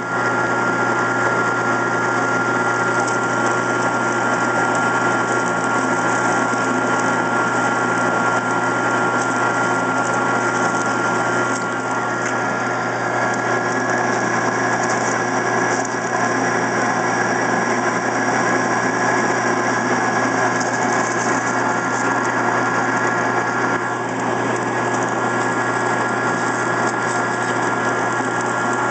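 Benci TY-C0632 metal lathe running steadily while taking a heavy dry cut in mild steel at low spindle speed, with a steady high tone over the machine noise.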